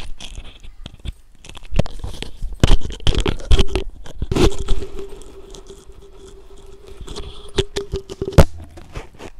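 Metal spoon scraping and knocking against a metal kadhai while stirring thin curry gravy, in irregular strokes and clinks, with a faint steady hum through the middle.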